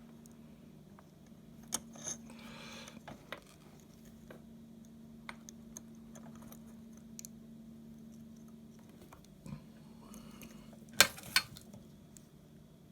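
Light clicks and taps of wires and a circuit board being handled during soldering, over a faint steady hum; two sharper clicks come close together near the end.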